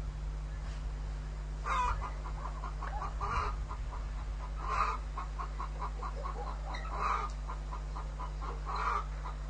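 Chickens clucking: a run of quick clucks with five louder calls spaced about every one and a half to two seconds, over a steady low hum.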